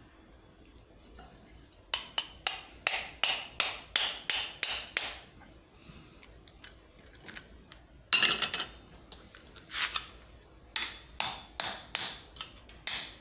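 Small hammer tapping around a brass 50 BMG shell casing with a steel ball bearing stuck in its mouth: quick runs of sharp metallic taps, about three a second, with a louder knock about eight seconds in. The taps stretch the brass against the ball to work it loose.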